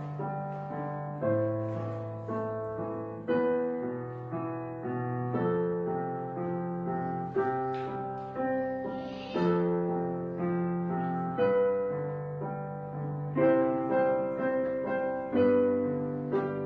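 Background piano music: chords struck about once a second, each fading before the next.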